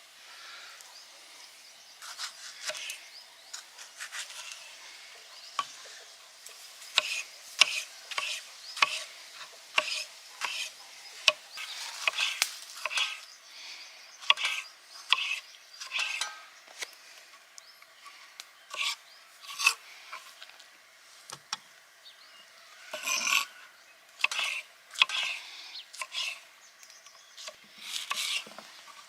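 Irregular scraping and rubbing strokes with scattered knocks, coming in uneven clusters, some a second or so apart.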